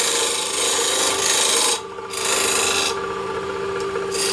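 Steel turning tool scraping the face of a wooden disc spinning on a lathe, a rough hiss over the steady hum of the lathe's motor. The scraping breaks off briefly about two seconds in, then resumes and eases off near the end.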